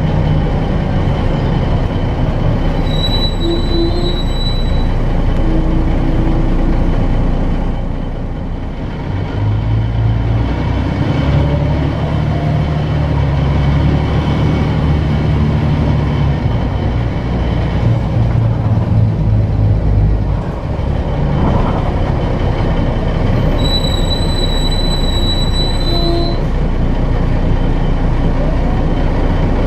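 Articulated diesel city bus running under way, heard from inside the cabin: steady engine and drivetrain drone, rising in pitch through a long stretch and easing off twice. A high-pitched squeal is heard twice, each lasting a couple of seconds, about three seconds in and near the end.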